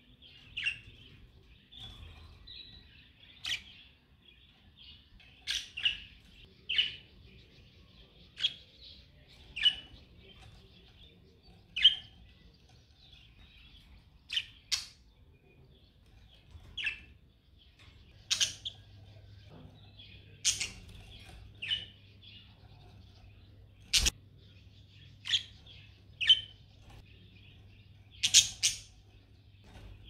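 Pet budgerigars warbling, a continuous soft chatter broken by sharp chirps every second or two. About three-quarters of the way through, one sharp click is the loudest sound.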